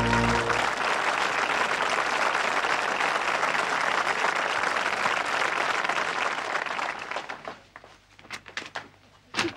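Studio audience applauding as the band's final chord dies away in the first half second; the applause fades out about seven seconds in, and a sharp knock comes just before the end.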